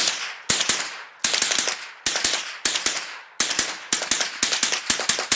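High Standard AR-15 fitted with a CMMG .22 conversion kit, fired quickly in a magazine dump: about two shots a second, each ringing out briefly. The dry, dirty kit keeps cycling every round without a stoppage.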